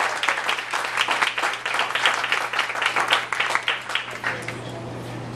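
A small group of people applauding, the clapping dying away about four seconds in.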